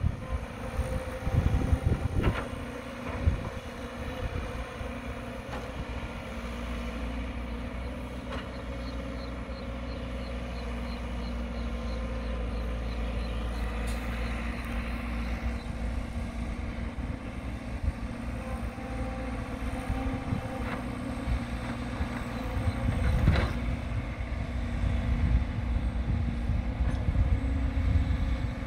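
Caterpillar 312 hydraulic excavator's diesel engine running steadily as it works beside a dump truck, with a few sharp knocks, the loudest near the end.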